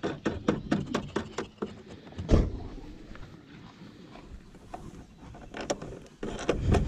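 Cables being connected to a trolling-motor battery: ring terminals fitted over the posts and the plastic knob nuts screwed down by hand, making a run of small clicks and taps. One louder knock comes a little over two seconds in.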